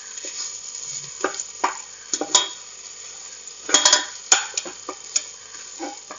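A perforated metal spoon scraping and stirring spices and tomato paste in the oiled base of an aluminium pressure cooker, in irregular strokes with a couple of louder scrapes, over a light sizzle of the frying.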